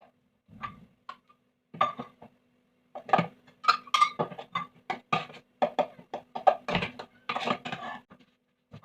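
Kitchen dishes and utensils clinking and knocking in a run of irregular strikes, several a second and getting busier after the first few seconds, over a faint steady hum.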